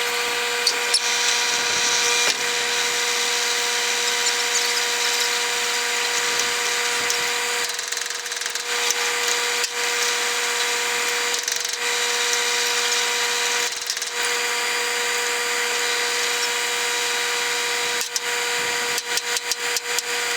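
John Deere 9500 combine header machinery running: a steady mechanical whine with a hiss of crop and scattered rattles and clicks, especially near the end.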